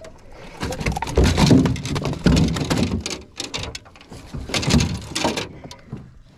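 Loud irregular rustling and crackling with many sharp clicks, in a long surge from about half a second in and a second surge near five seconds, dying away before the end.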